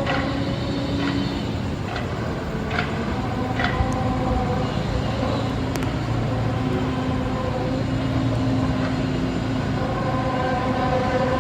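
A loud, steady drone of several held tones over a low rumble, with sharp clicks about once a second in the first few seconds.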